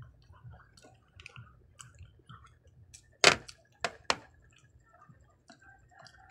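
Wooden chopsticks clicking against hard candy-coated peanut M&Ms on a plate: faint small ticks, then three sharp clicks a little past halfway.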